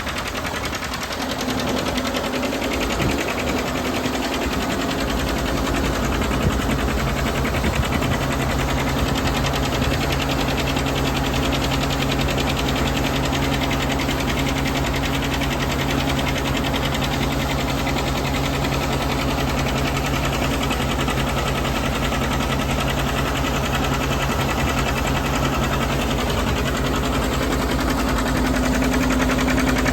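John Deere 720 two-cylinder diesel tractor running steadily, driving a Gehl grinder as it grinds chicken feed. The sound is unsettled for the first few seconds, then holds a steady hum.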